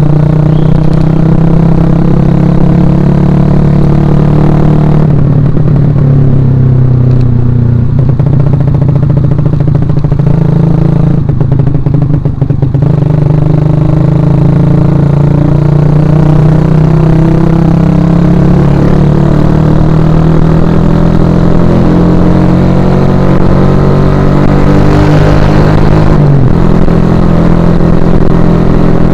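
2011 Suzuki Shogun Axelo R's single-cylinder four-stroke engine running loud while being ridden. Its pitch breaks briefly twice, then climbs slowly over many seconds and drops sharply near the end, as at a gear change.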